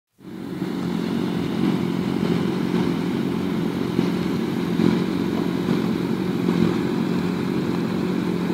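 A grid of sport motorcycles running together at idle, with a few short revs.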